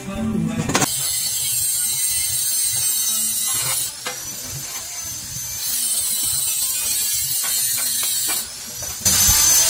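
Electric vibrator motor on a manual concrete block press running, rattling the steel frame and mould. It drops in level for a moment about four seconds in and again near the end.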